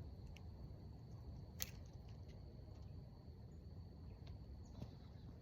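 Faint outdoor nature ambience: a steady high insect trill over a low rumble, with a few scattered clicks, the sharpest about a second and a half in.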